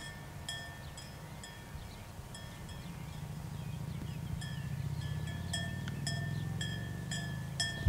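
Bells on grazing goats clinking irregularly, one or two short ringing strokes a second, over a low steady hum that grows louder about halfway through.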